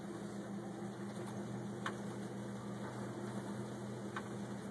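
Bedini window motor, an electric pulse motor driving a small boat, running with a steady hum at low speed on 6 volts, over a hiss of water and wind. Two faint clicks, about two and four seconds in.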